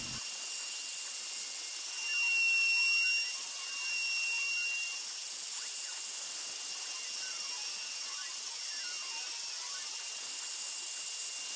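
A homemade CNC router V-carving pine: the router spindle runs with a steady high whine and hiss, while its Nema 17 stepper motors add faint whines that rise and fall in pitch as the axes move.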